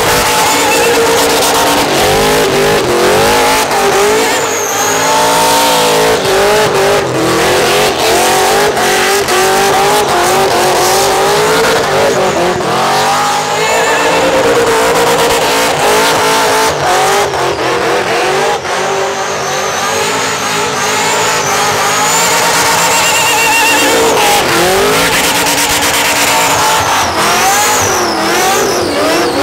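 Supercharged burnout car's engine held hard against the rev limiter, its pitch wavering up and down, over the continuous screech of spinning rear tyres.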